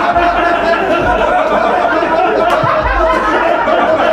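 Live audience laughing at a punchline: many people laughing together in a dense, steady mass.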